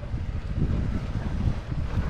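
Ford F-150 pickup crawling slowly over loose rocks: a low, uneven engine and tyre rumble with wind buffeting the microphone.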